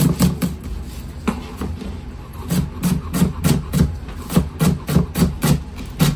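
Chef's knife mincing an onion on a cutting board: a quick run of blade strikes, about three to four a second, with a lull about a second in before steady chopping resumes. Quiet background music plays underneath.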